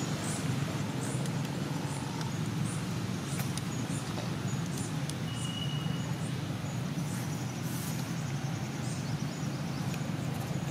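Steady outdoor background rumble, with faint short high ticks or chirps scattered throughout and a brief thin high tone about five seconds in.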